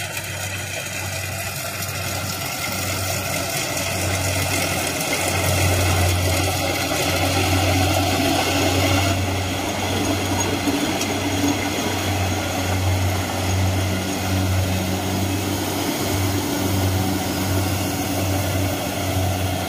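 Rice combine harvester running while cutting rice: a steady engine drone with machinery noise, growing louder over the first five or so seconds as the machine comes close, then staying loud.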